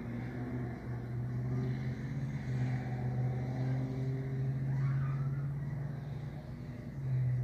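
A motor vehicle's engine running, a steady low hum that grows louder towards the middle and then fades.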